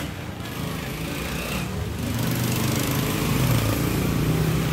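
A small engine running steadily, its low drone growing louder about two seconds in and then holding.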